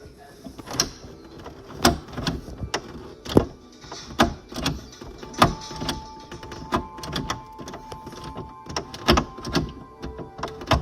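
Classic Volkswagen door handle and latch mechanism clicking and clunking as it is worked over and over, a stiff mechanism being freed up.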